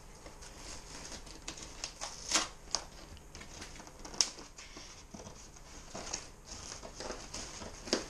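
Scissors cutting through packing tape on a cardboard box: irregular snips, clicks and crinkles of tape and cardboard, with a few sharper snaps about two and four seconds in.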